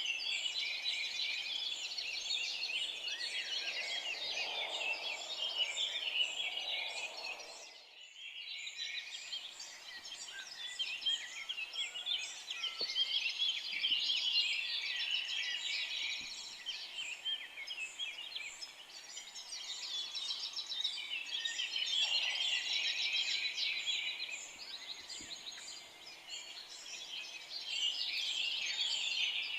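A dense chorus of many forest songbirds chirping and singing together, with no single voice standing out. About eight seconds in the chorus drops away for a moment, then resumes.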